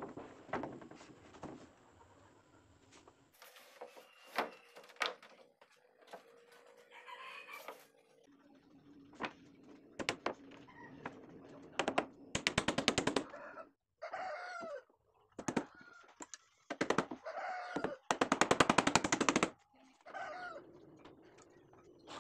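Domestic chickens clucking and a rooster crowing twice, each crow harsh and about a second and a half long, the second one the loudest. A few light knocks of wooden planks being handled come near the start.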